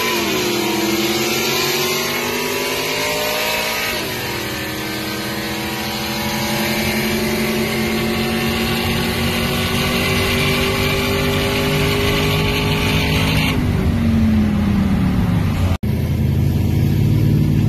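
Cammed V8 pickup engine accelerating hard: the pitch climbs, drops sharply about four seconds in, climbs slowly again for several seconds, then falls away. Near the end it cuts off abruptly and gives way to a low steady rumble.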